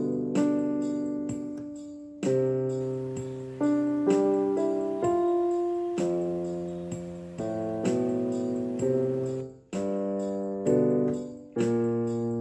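Background piano music: chords struck about once a second or so, each one dying away before the next.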